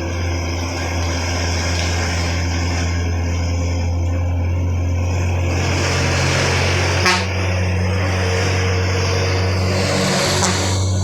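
Heavy vehicle engine running with a steady low drone, with tyre and road noise building in the second half and a sharp knock about seven seconds in.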